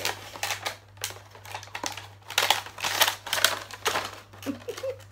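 Clear plastic wrapping crinkling and rustling in quick, irregular crackles as a small packaged item is unwrapped and handled, over a steady low hum.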